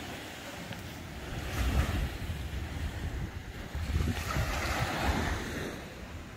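Small surf waves breaking and washing up on a sandy beach, with wind buffeting the microphone in gusts.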